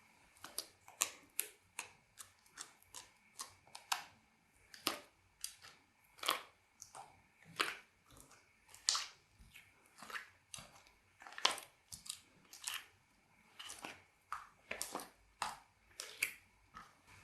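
Slime being worked by hand, squished and stretched, giving a string of irregular short pops and clicks, about two or three a second.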